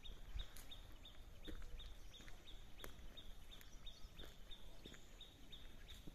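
Steady, rhythmic chirping: short high calls repeating evenly about three times a second. Behind it are a low wind rumble and a few faint clicks.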